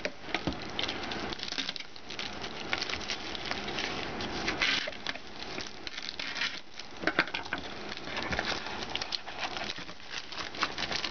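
Plastic wrapping of a hot dog package crinkling and rustling as hands cut it open and pull the franks out, a dense run of small crackles and clicks.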